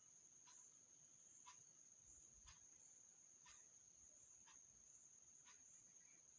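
Near silence: a faint steady high-pitched whine with a faint tick exactly once a second.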